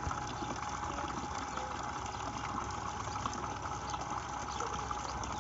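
Water gushing steadily from the outlet of a 12 V solar-powered borewell pump, with a faint steady hum underneath.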